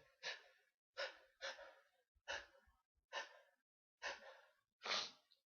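A person breathing hard in and out through the mouth between sneezes: about eight short, breathy gusts, roughly one every half second to second, with no voice in them.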